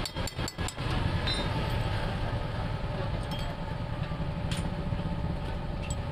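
Rapid tapping, about five taps a second, that stops about a second in. It gives way to a steady low rumble like a running engine, with one sharp click about four and a half seconds in.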